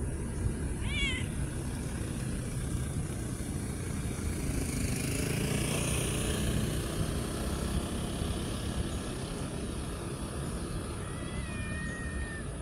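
A cat meowing: a short wavering meow about a second in and a longer, drawn-out meow near the end. Under it is a steady low background of traffic, swelling midway as a vehicle passes.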